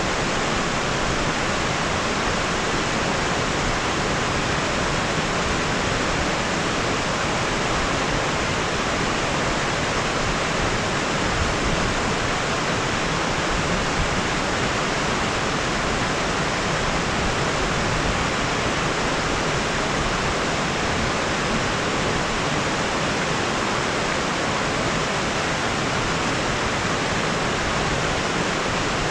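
Water rushing steadily: an even, unbroken hiss of flowing water that does not change through the whole stretch.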